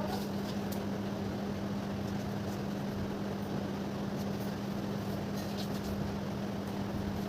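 A steady low hum over a constant rush of background noise, with a few faint soft ticks.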